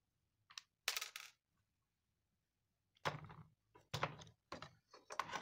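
Clattering knocks and clicks of hard parts being handled and set into an induction cooktop's plastic base, a few about a second in and a rapid run of them in the last two seconds.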